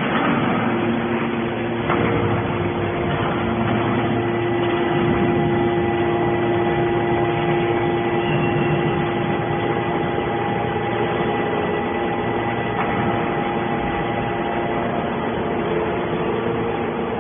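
Steady mechanical hum: several held tones over a noisy rumble, with a faint knock about two seconds in and another near the end.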